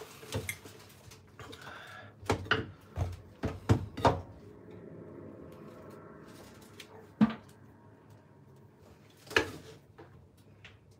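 Handling noises from peeling a banpeiyu pomelo by hand: a cluster of short knocks and taps a couple of seconds in, then two more single knocks later, with soft rustling of the rind between them.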